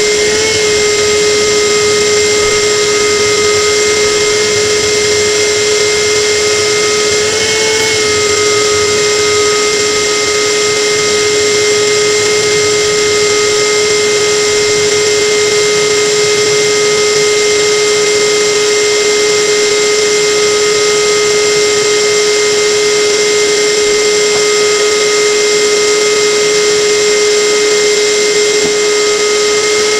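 A motor-driven machine running steadily: a constant high whine over a loud hiss, which wavers briefly about eight seconds in.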